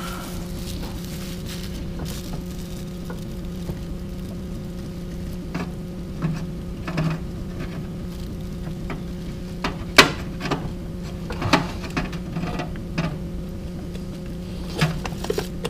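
Scattered metal clicks and clinks of parts and tools being handled inside an open BMW N62 V8 cylinder head, the sharpest about ten seconds in, over a steady low hum.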